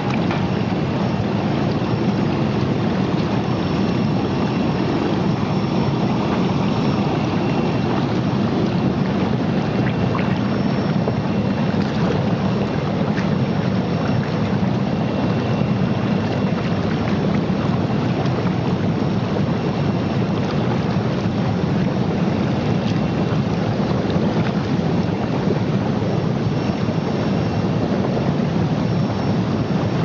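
Bubble-type fish and meat washing machine running: water churning and bubbling steadily in its stainless steel tank as air is blown through it. A faint high tone comes and goes.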